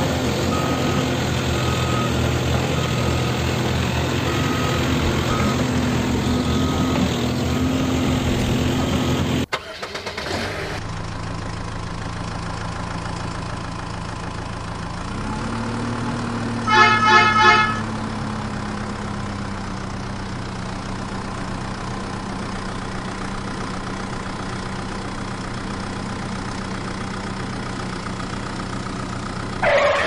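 Dubbed-in heavy diesel engine sound running steadily, with a regular high beeping over it. After a cut about ten seconds in, a truck engine runs and revs up, and a truck horn sounds three short blasts a few seconds later.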